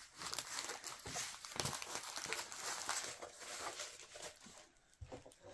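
Diamond painting canvas with its plastic cover film crinkling and rustling as it is handled and rolled up, with a few small taps and clicks.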